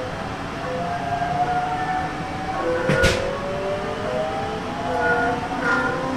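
Hokuso 7300 series electric train with a Toyo GTO-VVVF inverter, heard from inside the car as it accelerates from about 20 to 35 km/h. The inverter's whine is several tones that slide and step upward in pitch over the rumble of the wheels on the rails. There is one sharp click about three seconds in.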